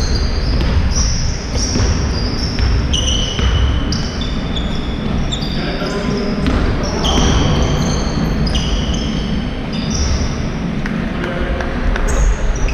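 Basketball shoes squeaking on a sports-hall court floor in many short, high squeals, mixed with ball bounces and the thuds of running feet.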